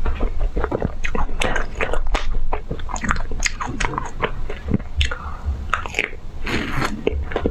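A person biting into and chewing a crunchy ice cream, its hard coating crackling with many sharp, irregular crunches.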